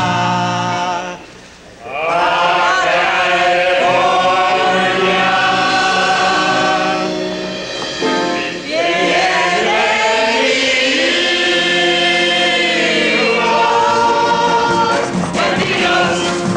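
Mixed chorus of men and women singing a Mexican-style stage song with accompaniment, holding long notes. There is a brief lull about a second in.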